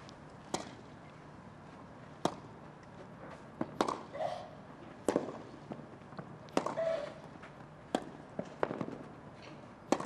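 Tennis rally on a grass court: sharp racket-on-ball strikes traded back and forth about every one and a half seconds, with a few fainter knocks in between.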